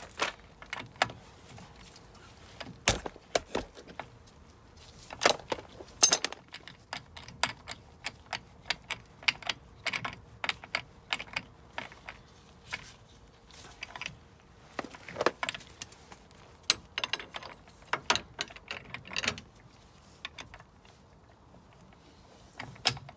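Irregular metallic clinks and clicks of a socket and extension bar being fitted onto the front hub's driveshaft nut, with a few louder knocks around three to six seconds in.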